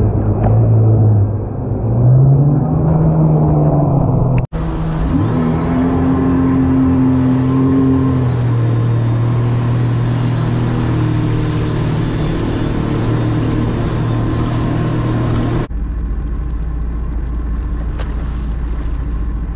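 Sea-Doo jet ski engine running under way, its pitch rising and shifting as the throttle changes. The sound cuts abruptly to a different take twice.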